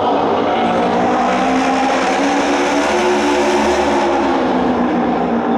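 A pack of Japanese auto race motorcycles, their 600 cc four-stroke twin-cylinder engines running at full throttle as they race in a group. The sound swells as the pack passes closest, loudest about three to four seconds in, then eases off.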